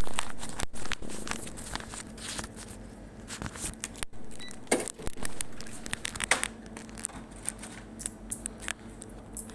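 Irregular clicks, clinks and rustling from things handled at a shop counter during a purchase, with a louder knock right at the start.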